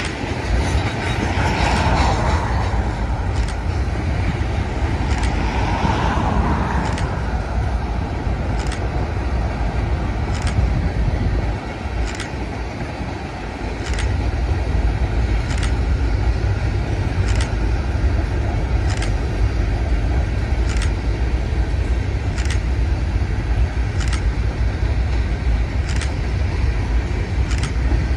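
Freight train of covered hopper cars rolling slowly past, steel wheels clacking on the rails about every one and a half to two seconds over a steady low rumble.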